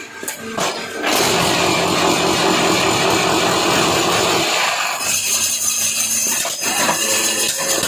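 Automatic paving block machine running with a loud, steady mechanical noise that starts abruptly about a second in and changes character about five seconds in.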